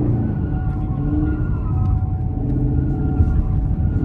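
Manual-transmission car's engine running under throttle, heard from inside the cabin, as the car is driven in a tight circle. Its pitch wavers up and down and climbs again near the end.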